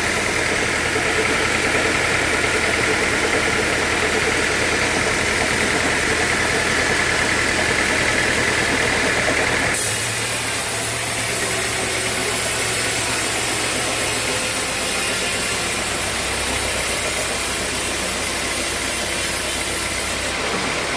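Sawmill machinery running steadily, with an abrupt change in tone about ten seconds in.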